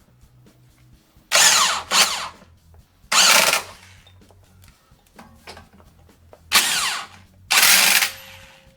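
Impact driver run in five short bursts, about half a second each, driving in the 21 mm mounting bolts of a new rear shock absorber.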